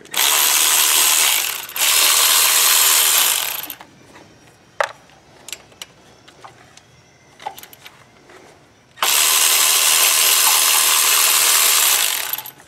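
Cordless electric ratchet spinning off exhaust manifold nuts: two runs back to back at the start and a longer one about nine seconds in. A few light metallic clicks from the socket and tool handling come in between.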